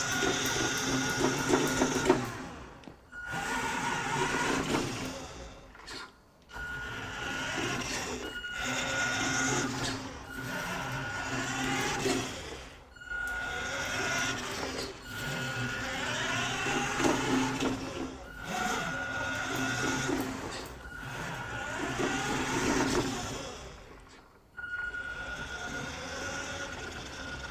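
Electric motor and gearbox of a hobby-grade radio-control Mini Cooper S car whirring in short runs of two to four seconds, stopping briefly between each as the car is driven back and forth, heard from an action camera mounted on the car.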